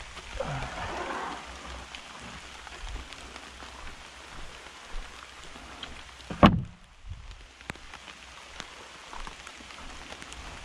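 Steady rain falling, with scattered drops ticking on surfaces. One sharp, loud thump about six and a half seconds in.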